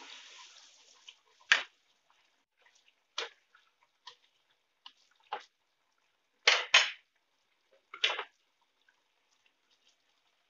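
Chicken and ginger simmering in liquid in an uncovered wok: a soft hiss fading over the first second, then sharp pops and spits every second or so, two close together near the middle, as bubbles burst.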